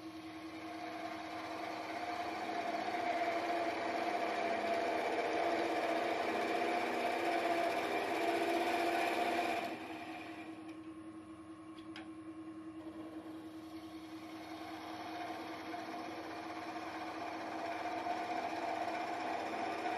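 Wood lathe running with a steady hum while a hand-held turning tool cuts the neck of a stone pine vase. The cutting noise stops abruptly about halfway through, then builds again over the last few seconds as the tool goes back into the wood.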